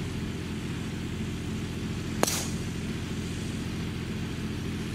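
A HONMA driver strikes a teed golf ball: one sharp crack about two seconds in, with a brief ringing tail. Under it runs a steady low mechanical hum.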